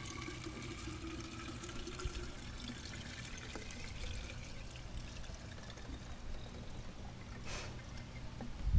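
Fuel trickling steadily as it is poured out of a used fuel-water separator filter into a jar, draining the old filter to check it for water and debris.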